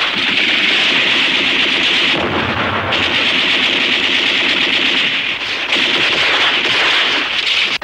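Battle sound effects: dense, continuous gunfire and machine-gun fire with shell bursts. The firing breaks off briefly a little over two seconds in.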